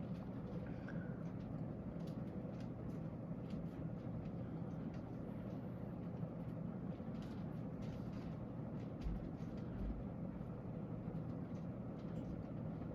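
1988 Hunter Original ceiling fan running on high speed, its oil-bath motor freshly oiled with Hunter fan oil: a steady low motor hum under the rush of air from the blades.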